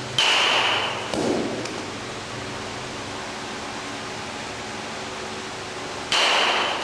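Batting-cage pitching machine cycling twice, about six seconds apart. Each cycle is a sudden hiss with a steady high tone lasting under a second, followed about a second later by a duller thump as the pitch arrives.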